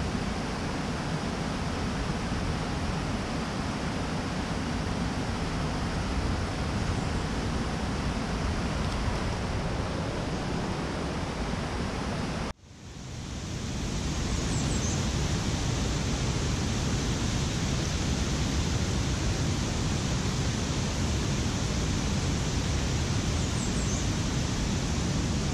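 Steady rush of a mountain creek's water tumbling over stones. About halfway through it cuts out suddenly and fades back in.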